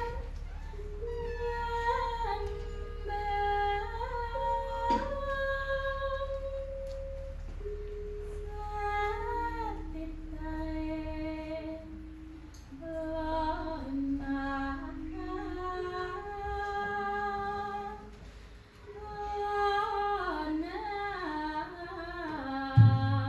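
Solo female voice singing the free-rhythm vocal introduction to a Javanese gamelan jineman: long held notes with slow glides and ornaments, phrase by phrase with short pauses. Near the end a couple of deep kendang drum strokes signal the ensemble to come in.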